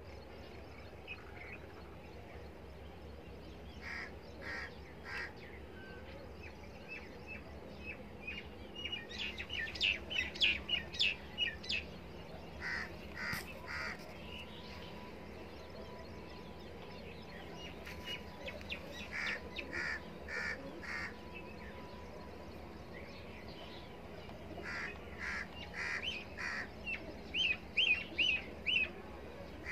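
Birds chirping outdoors: runs of short, quick, high chirps, busiest about a third of the way in and again near the end, over a faint steady low background.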